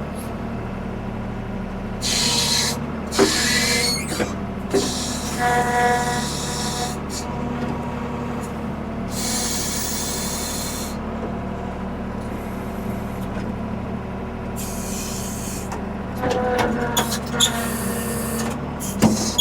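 1975 Ford 550 backhoe's diesel engine running steadily, with several bursts of hiss, a brief squeal about five seconds in, and a few sharp knocks as the machine works.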